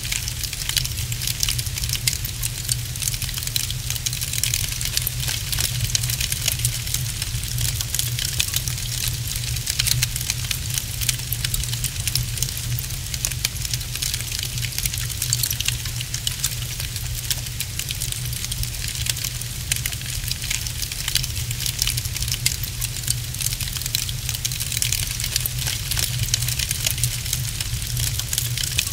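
Wood fire crackling in a fireplace: a dense, unbroken run of small sharp pops and snaps over a steady low rumble.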